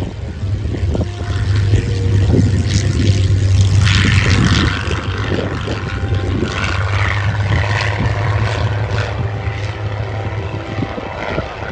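World War II piston-engined fighters flying past in a four-ship display: a deep, steady propeller-engine drone that swells to its loudest around two to five seconds in, then slowly eases off.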